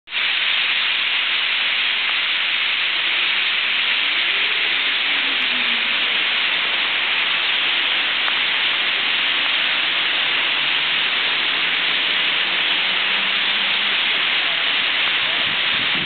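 Massed calls of a huge flock of European starlings, blending into one steady, dense hiss.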